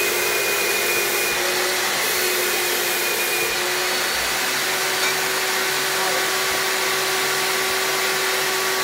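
Paint spray gun spraying undercoat, its air supply giving a steady rushing hiss with a constant whine.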